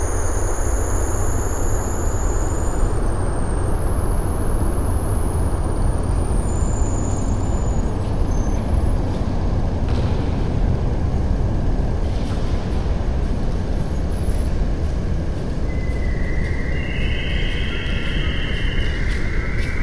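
Dense, steady rumbling noise from an experimental film's soundtrack played in a screening room, with a faint high tone coming in near the end.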